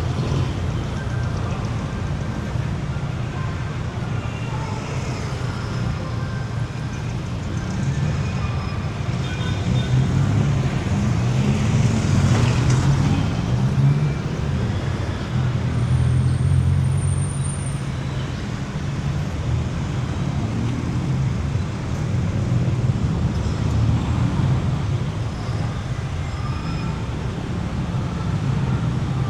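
City street traffic: motor vehicle engines running steadily. The traffic grows louder for several seconds in the middle as vehicles pass close.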